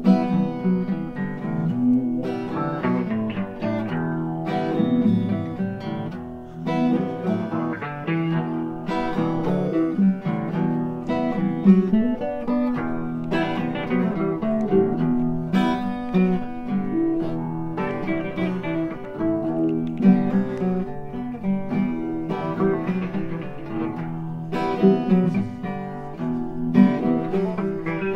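Acoustic guitar music, plucked and strummed chords at a steady pace.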